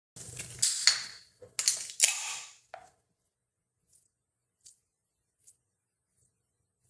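Several sharp clicks and knocks over the first three seconds, then near silence broken by a few faint ticks.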